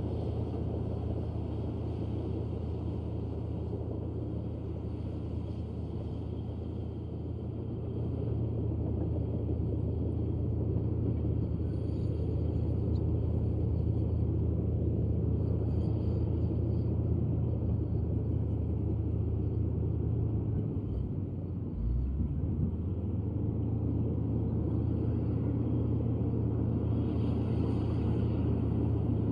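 Komatsu D155A bulldozer's diesel engine running with a steady low rumble, growing a little louder about eight seconds in. Around twenty-one seconds in the note dips briefly and there is a short low thump.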